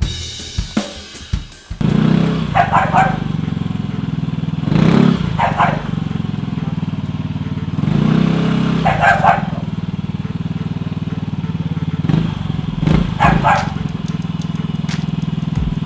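Yamaha Mio i125 scooter's single-cylinder four-stroke engine catching about two seconds in, then idling and revved up briefly twice. A dog barks in short bursts several times over it.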